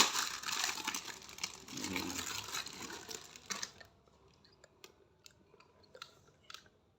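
Plastic rustling and crinkling while nebulizer parts are handled. It stops suddenly about four seconds in and is followed by a few faint, light plastic clicks and taps as the pieces are fitted together.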